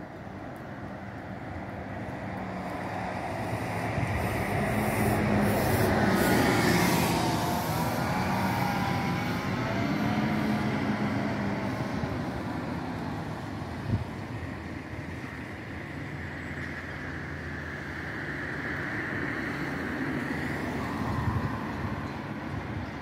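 Road traffic on a city street: engines and tyres of passing cars and a bus, swelling as a vehicle goes by close about five to seven seconds in, then easing to a steady hum. A single short knock about fourteen seconds in.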